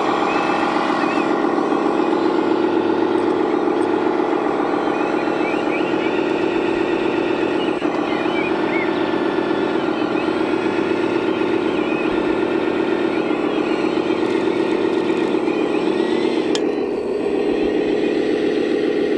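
Radio-controlled model truck or machine running: a steady engine-like drone that wavers slightly in pitch, dipping briefly near the end.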